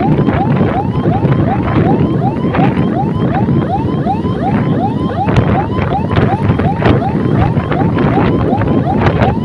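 Electronic siren in a fast yelp, about three rising sweeps a second, over wind rush on the microphone and the hum of the moving scooter.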